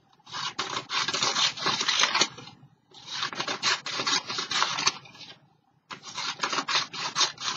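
Book pages being torn into strips, three long crackly rips of about two seconds each with short pauses between.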